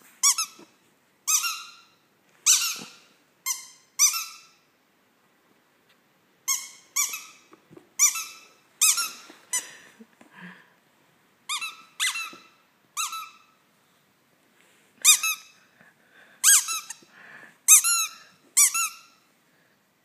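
A dog's squeaky toy squeezed by hand again and again, giving short, high-pitched squeaks in irregular runs, with a couple of brief pauses.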